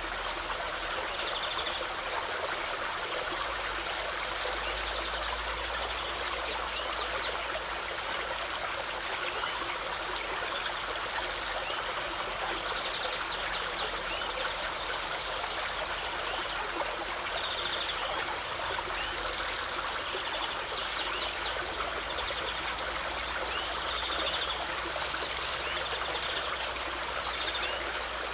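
A river flowing steadily, an even rush of running water over rocks.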